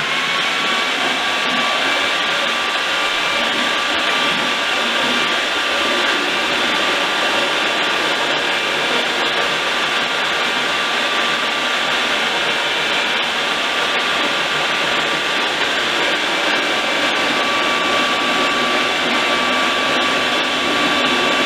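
Harbor Freight handheld electric mortar mixer running steadily with a high whine, rising slightly in pitch as it spins up at the start. Its paddle is churning cotton fibres in a bucket of water, breaking them up into smooth paper pulp.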